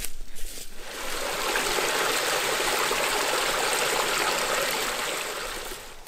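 Running water, a steady rushing trickle, coming up about a second in and fading away near the end.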